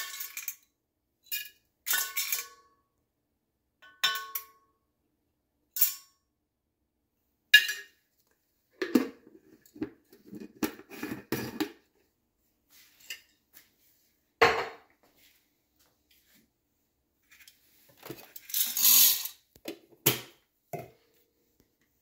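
Coffee beans being spooned into a stainless-steel cup on a kitchen scale: a metal spoon clinks against the cup several times, each clink ringing briefly, then beans rattle into the cup, with a knock and a longer rattle near the end.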